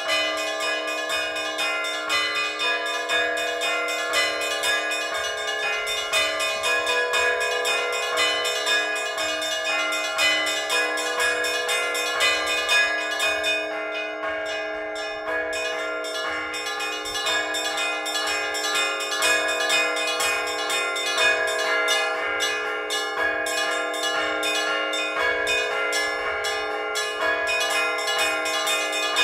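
Orthodox church bells rung by hand in a continuous peal: small bells struck in quick, rhythmic succession over the steady ringing hum of larger bells.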